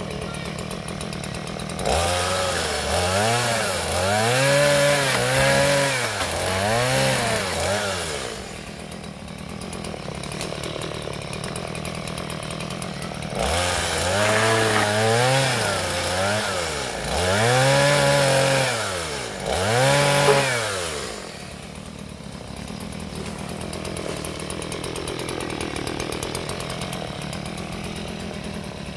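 Stihl two-stroke chainsaw idling, then revved in two bouts of repeated rising-and-falling surges as it cuts into coconut palm, about two seconds in and again about thirteen seconds in, dropping back to idle after each.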